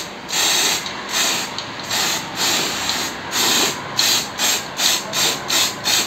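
Aerosol spray paint can spraying a coat of white paint in about a dozen short hissing bursts, the bursts getting shorter and quicker toward the end.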